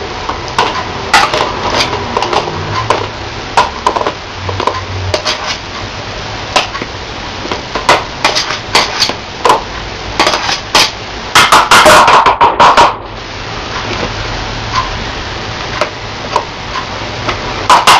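A metal spoon clinking and knocking against a bowl and the food processor's container as ricotta and cheese are spooned into the processor. The knocks come singly and irregularly, with a quick run of louder taps about two-thirds of the way through.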